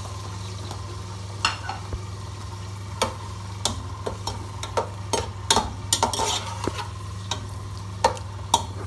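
Chopped onions sizzling in hot oil in a pot as they start to fry. A spatula stirs them, with irregular clicks and scrapes against the pot that come more often in the second half, over a steady low hum.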